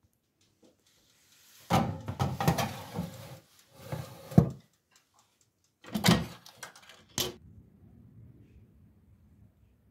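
A run of knocks and scrapes from handling in the kitchen. A dense clatter about two seconds in lasts a bit over a second, another burst ends in a hard knock near four and a half seconds, a shorter one comes at six seconds and a sharp click follows just after seven. A faint low hiss follows.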